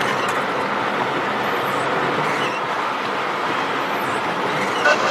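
Steady rushing road and wind noise of a moving vehicle, heard from inside the cabin.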